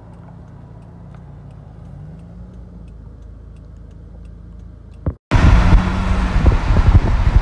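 A car engine runs low and steady at slow speed, with a slight rise in pitch partway through. About five seconds in, this gives way abruptly to a loud rush of wind and road noise from a car moving at highway speed, with engine tones running underneath.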